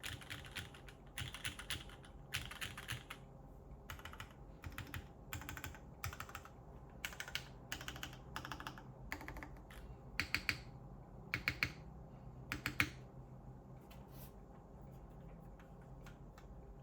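Mechanical keyboard with Cherry MX Black linear switches, a full aluminium plate and GMK doubleshot keycaps, typed on in short bursts of rapid keystrokes. The typing stops about thirteen seconds in, leaving only a couple of faint taps.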